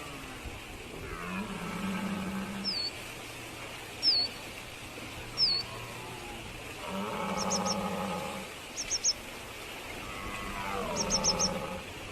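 A bird calling: three single high, down-slurred chirps about a second and a half apart, then three quick runs of three or four chirps each. Beneath it, a low drone swells and fades three times over a steady faint hiss.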